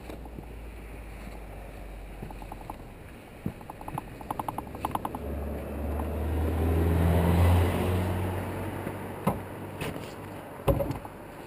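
A motor vehicle engine running close by with a steady low note, swelling to a peak about seven and a half seconds in and then fading. Before it comes a quick run of clicks, and a few sharp knocks follow it near the end.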